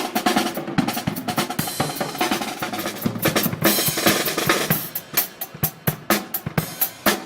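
Drum kit played in a fast, busy beat, with rapid snare and bass drum hits throughout.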